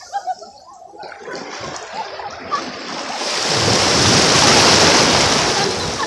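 Small waves washing up a sandy shore at the water's edge: a quiet fizzing of foam at first, then the rush of surf building to its loudest about four seconds in and easing off near the end.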